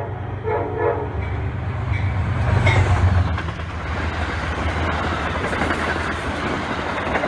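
Amtrak passenger train passing at speed: a horn blast that ends about a second in, then the rush and low rumble of the coaches going by, with wheels clattering over the rail joints.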